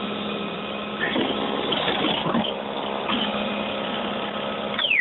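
EGO 21-inch battery-powered snowblower running steadily with its electric motor whining. Near the end the motor is switched off and its whine drops quickly in pitch.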